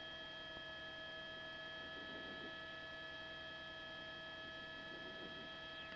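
Faint steady electrical hum made of several high, unchanging tones layered together.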